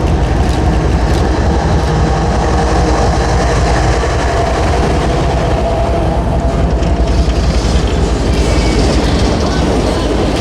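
Diesel-hauled train passing close by: a steady heavy rumble of the locomotive and rolling cars, with clicking of wheels over rail joints.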